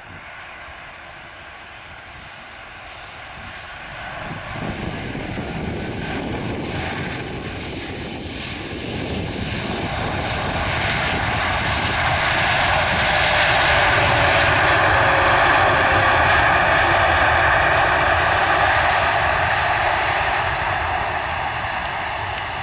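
Jet engines of an Airbus A340-300 landing and rolling out along the runway: a steady rush that grows louder as the aircraft passes close, loudest for several seconds in the second half, with a slowly falling whine, then cuts off suddenly.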